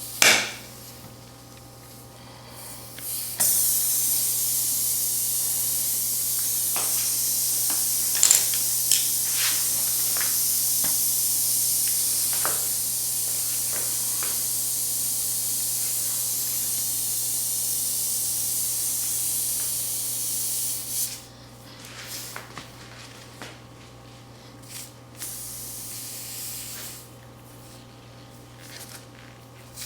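Compressed air hissing steadily for about seventeen seconds, then cutting off suddenly, with a few faint clicks over it. A sharp knock comes right at the start.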